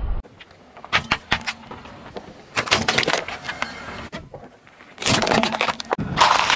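Car tyre rolling over and crushing small objects on asphalt: short runs of crackling and crunching about one, three and five seconds in, then a denser crunch near the end.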